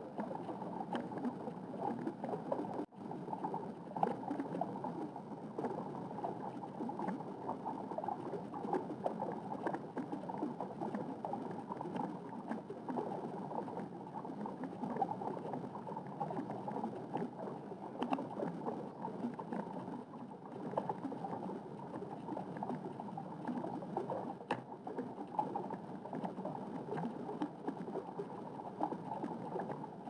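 Steady, muffled underwater water ambience: a low, even rush of water with faint scattered clicks, dropping out for an instant about three seconds in.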